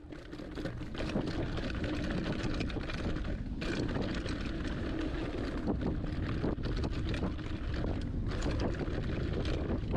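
Wind buffeting the microphone, mixed with a hardtail mountain bike's tyres rolling fast over a rough dirt and rock trail and a steady run of rattling clicks from the bike over the bumps.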